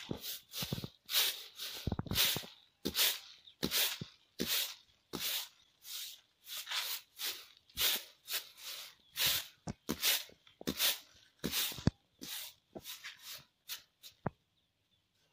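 Grain being winnowed in a woven winnowing tray: rhythmic rustling swishes of the grain tossed and shaken across the tray, about two strokes a second, easing off shortly before the end.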